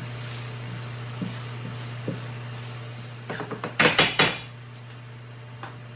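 Metal tongs knocking and scraping against a nonstick frying pan: a quick cluster of sharp clacks a little past halfway, under a steady low hum.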